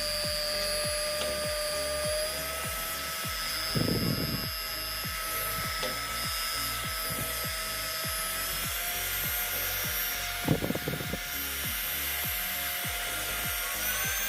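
Small handheld rotary tool motor running with a steady high whine that steps up in pitch a few times. Short rough bursts come about four seconds in and again around ten seconds in.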